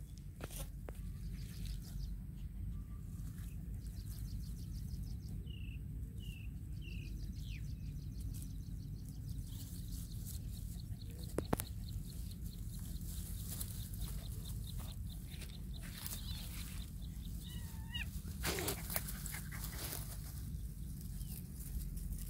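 Outdoor field ambience: a steady low rumble and a fine pulsing insect trill, with three short high chirps about six seconds in. Scattered rustles and clicks of grass and dry brush come from the puppy and kitten moving through it, most clearly near the middle and about three-quarters of the way through.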